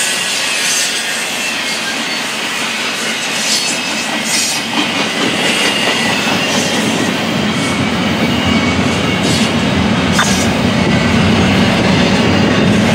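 Double-stack container cars of a CSX intermodal freight train rolling past: a steady rush of steel wheels on rail with a few sharp clicks over the rail joints. The low rumble grows louder in the second half.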